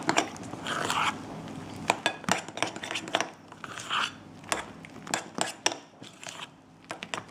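A utensil stirring thick buttercream in a glass bowl: irregular clicks and knocks against the glass, with a few short soft swishes of the cream being folded.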